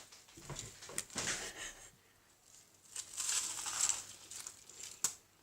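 A crisp microwave-made meringue crunching and crumbling as it is bitten and chewed, in two spells of crunching.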